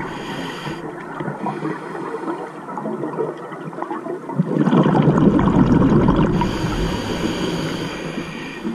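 Scuba diver breathing through a regulator underwater. About halfway through comes the loudest part, a rush of exhaled bubbles, followed by the steady hiss of the next breath in.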